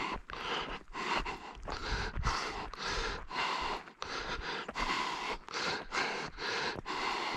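Rhythmic panting close to the microphone, about two breaths a second.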